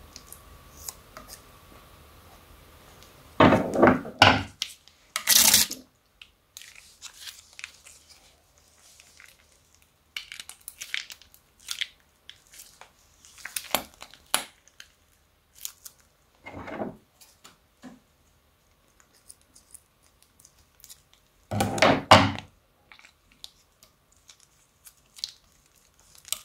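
Plastic piping bag crinkling and being squeezed as it empties liquid glue and small beads into a glass bowl. There are a few louder wet bursts: a cluster a few seconds in and another strong one near the end.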